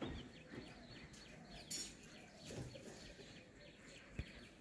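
Faint outdoor ambience of small birds chirping in quick, repeated short calls, with a brief rustle a little before the middle and a single sharp tap near the end.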